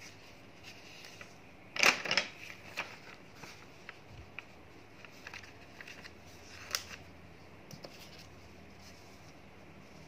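Sheets of translucent tracing paper rustling and crinkling as they are slid and turned by hand over the stereonet printout. There is a loud crinkle about two seconds in, a smaller one near seven seconds, and light ticks of paper between.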